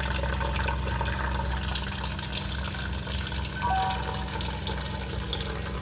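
Reverse-osmosis filtered water running steadily from a kitchen drinking-water tap into a plastic bottle, filling it.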